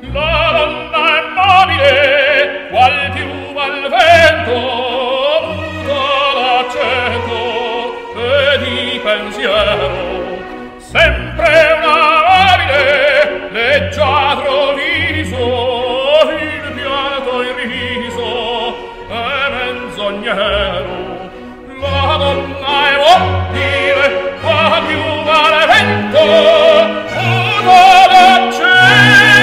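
Background music: operatic singing over orchestral accompaniment with a steady low bass pulse.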